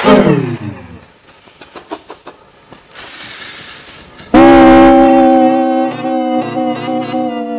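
A man's sneeze turned into music by pitch editing: about four and a half seconds in a loud sudden burst holds on as a steady chord of several pitches, which begins to slide down near the end. Before it, the falling tail of an earlier edited sneeze, a few faint clicks and a short hiss.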